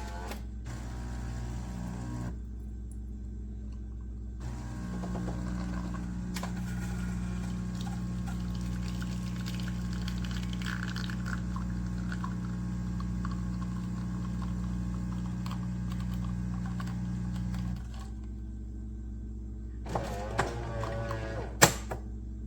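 Cafe Bueno super-automatic espresso machine running a steady hum as it dispenses hot water. The hum grows louder about four and a half seconds in and cuts off about eighteen seconds in.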